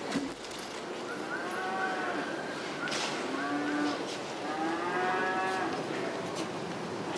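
Cattle mooing: two long, drawn-out calls, one about a second in and one about halfway through.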